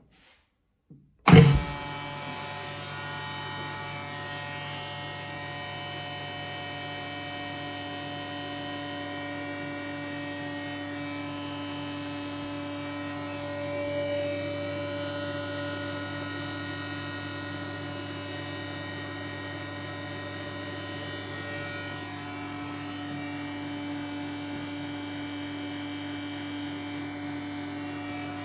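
Indokor IVP-350MS chamber vacuum packer with a 20 m³/h vacuum pump: the lid shuts with a thump about a second in and the pump starts at once, then runs with a steady hum through the vacuum cycle.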